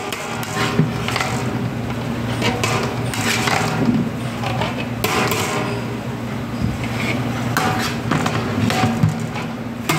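A long metal ladle knocking and scraping against a large metal pot again and again as a batch of biryani rice is turned over. A steady low hum runs beneath.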